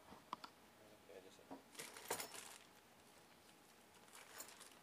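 Clear plastic wrapping crinkling as it is handled, in short quiet bursts about two seconds in and again near the end.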